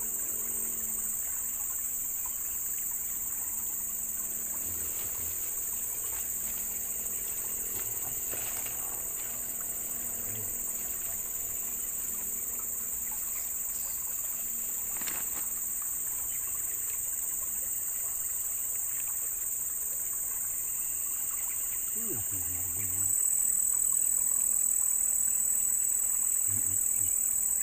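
Steady, high-pitched insect chorus, crickets by their sound, that grows louder about three quarters of the way in.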